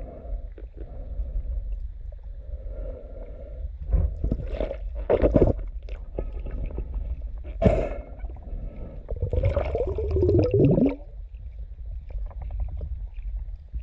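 Underwater sound of spearfishing: a steady low rumble with gurgling, bubbling bursts, the loudest a few seconds in and again just before the end.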